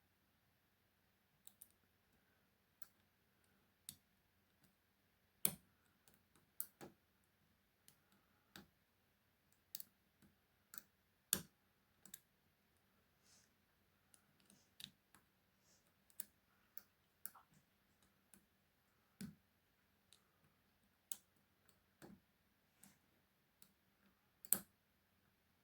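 Ifam E30 padlock being picked: faint, irregular metallic clicks and ticks of the pick raking and setting pin tumblers, with a few sharper clicks now and then.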